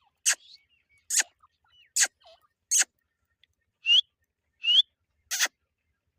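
Pet teetar partridges calling: a string of short, sharp, harsh calls about one every 0.8 seconds, two of them in the middle carrying a quick rising whistle.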